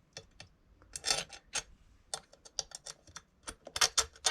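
Irregular small clicks and taps of hard parts and tools being handled while fitting an RC truck's chassis brace, with a cluster about a second in and the sharpest ones near the end.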